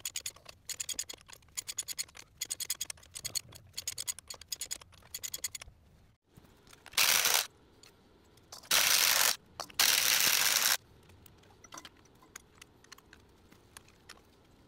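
Hand ratchet clicking in quick runs as it backs off the axle-shaft flange nuts on a truck hub. Then three short bursts of a cordless ratchet spinning nuts off, followed by a few light metal ticks.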